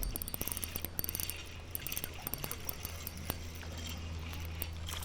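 Fishing reel being worked, with rapid mechanical clicking for about the first second, then sparser clicks, over a steady low rumble.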